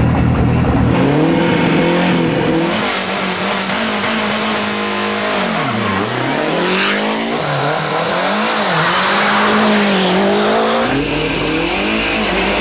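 Turbocharged four-cylinder engines of Group A Lancia Delta rally cars at full effort, the revs rising and falling over and over through gear changes. Several clips are cut together, so the engine note changes abruptly a few times.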